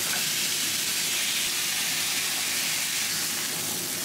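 Beef steak frying in hot oil in a nonstick pan, sizzling with a steady hiss.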